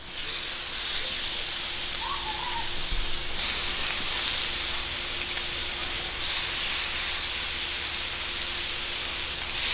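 Blackened striped bass fillets sizzling on a hot flat-top griddle, a steady hiss that steps louder twice, about three and six seconds in.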